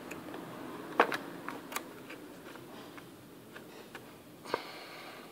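Light clicks and taps of a laptop RAM module being handled in an open memory bay, over a faint steady background hiss. The sharpest click comes about a second in, with a few softer ones after it and another near the end.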